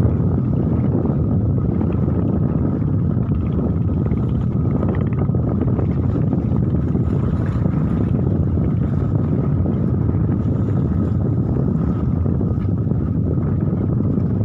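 Strong wind buffeting the microphone in a steady low rumble, with a faint steady high tone beneath it.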